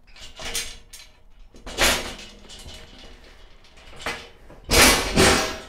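Heavy steel plate being slid and set down on a steel workbench frame: several metal scrapes and clunks, the loudest near the end.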